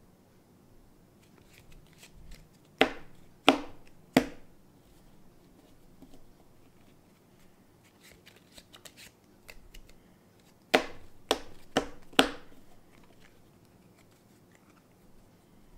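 A deck of playing cards being cut in the hands: soft card clicks and rustles, with three sharp slaps of packets meeting about three seconds in and a run of four more about eleven to twelve seconds in.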